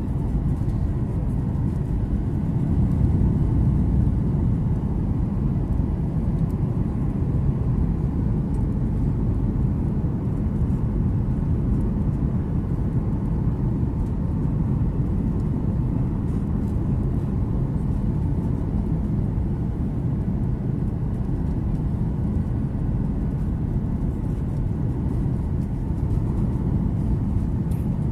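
Steady cabin noise inside a Boeing 737-800 on final approach with flaps extended: a low, even rumble of the engines and rushing air, with a faint steady whine above it.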